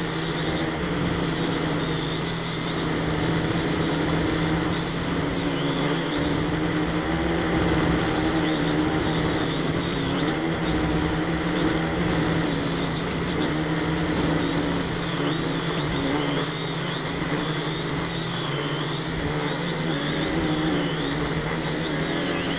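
F183DH toy quadcopter's motors and propellers whining steadily, heard close up through its onboard camera's microphone, the pitch wavering up and down as the motor speeds change to hold the drone in the air.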